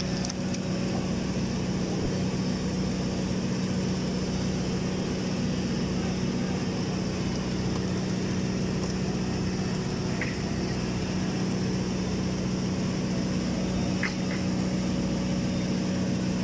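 Automatic girth welding machine running on a storage tank's horizontal seam: a steady mechanical hum with a pitched drone, broken only by a few faint clicks late on.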